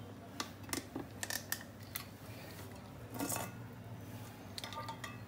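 Metal frying pans clinking and knocking lightly against each other as one pan is set upside down over another and the pair is turned over, with a low steady hum underneath.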